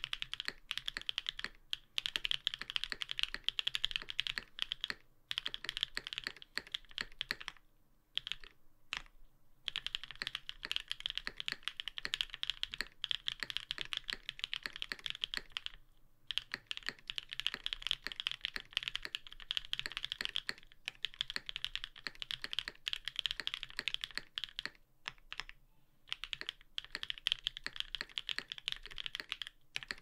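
Continuous typing on an SPV1 custom mechanical keyboard with lubed and filmed BSUN X linear switches in a polycarbonate plate, GMK keycaps, and the case force-broken with tape to damp hollowness. Quick keystrokes run in a dense stream with a few short pauses.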